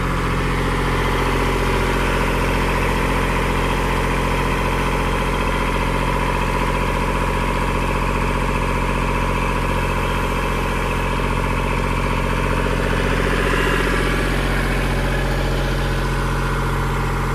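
Kubota compact tractor's diesel engine running steadily as the tractor drives slowly.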